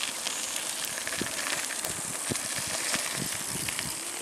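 Mountain bike tyres crunching and crackling over a gravel track as a line of riders rolls past, over a steady high-pitched hiss.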